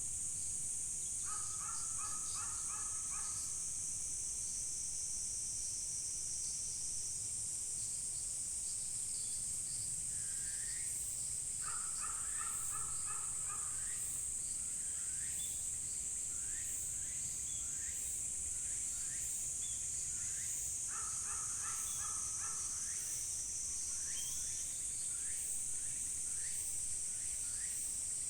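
Crow cawing in short runs of harsh calls, four runs about ten seconds apart, over a steady high-pitched insect chorus, with small bird chirps scattered through.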